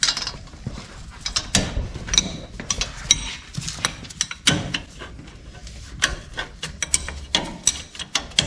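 Hand wrench clicking in short, irregular runs of sharp metallic ticks as it turns the bolts of a front wheel hub, with the clink of steel tools.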